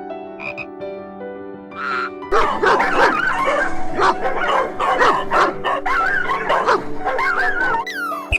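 Dogs yipping and barking in quick, overlapping succession, starting about two seconds in, over steady background music.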